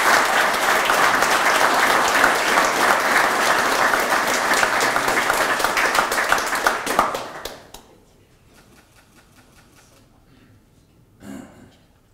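Audience applauding: dense, steady clapping from a seated crowd of guests that dies away about seven seconds in.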